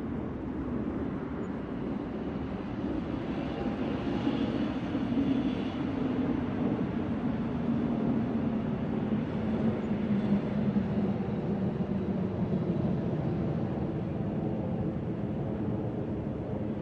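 New York subway train running through the station: a rumbling noise that grows louder a few seconds in, with a low hum that slowly falls in pitch.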